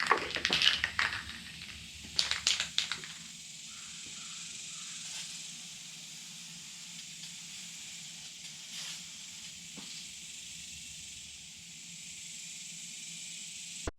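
Aerosol spray-paint can spraying: a few short spurts, then a long steady hiss.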